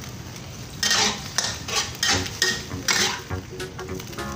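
Metal spatula scraping and clacking against a stainless wok, stirring in tapioca-starch slurry to thicken the sauce, over a low sizzle. Quieter for about the first second, then about seven quick strokes.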